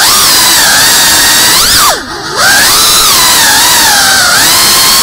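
FPV racing quadcopter's brushless motors and propellers whining loudly, the pitch rising and falling as the throttle changes. About two seconds in the whine drops briefly and then surges back up steeply.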